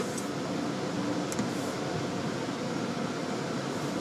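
Steady hum of a car's ventilation fan, heard inside the cabin.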